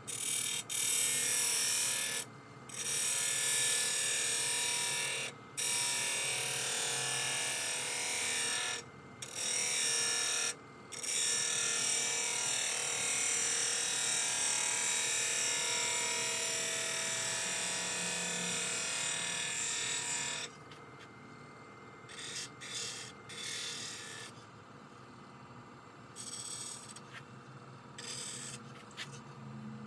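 Turning tool cutting a spinning goncalo alves (tigerwood) shift knob on a wood lathe: a hissing cut in several passes with short breaks between them. After about twenty seconds it gives way to quieter, intermittent light tool contact.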